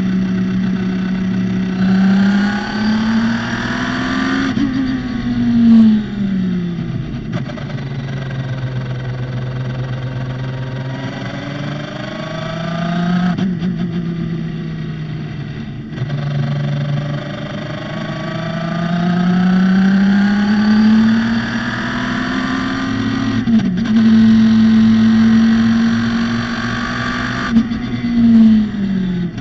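Radical SR3's motorcycle-derived four-cylinder engine running hard on track, its revs climbing in long rising sweeps under acceleration and then falling away as the car lifts off and slows, several times over.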